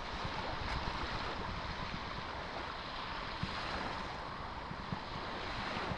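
Steady outdoor noise of surf and wind buffeting the microphone, with a few faint low bumps.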